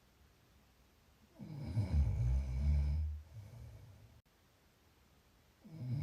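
Snoring. After a quiet breath, one long, low, rumbling snore starts about a second and a half in and lasts nearly two seconds, and the next snore begins just before the end.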